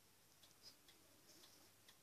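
Lincoln wind-up pendulum wall clock ticking faintly, about two ticks a second.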